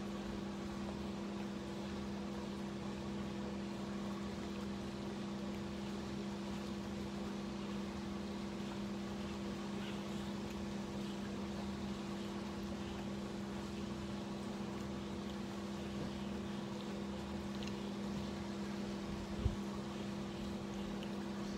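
Swimming pool filter pump running with a steady hum. A single thump about two seconds before the end.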